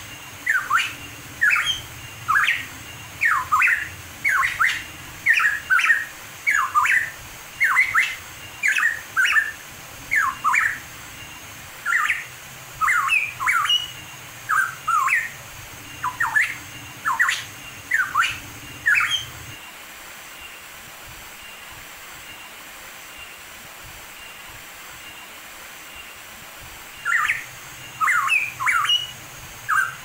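Hooded pitohui singing: a run of short, clear notes that slide down in pitch, about one a second. It stops about two-thirds of the way through and starts again near the end.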